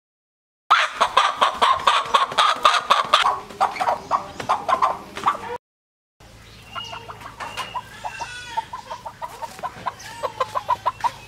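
Domestic chickens clucking and squawking loudly in quick runs of calls; after a short break about halfway through, quieter rapid clucking continues.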